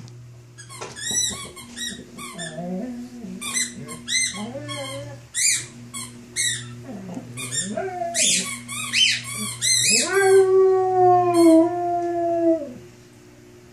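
A squeaky toy squeaking in quick runs of short, high squeaks as a Rhodesian Ridgeback mouths it. About ten seconds in, the dog lets out one long howl of about two and a half seconds, set off by the squeaking.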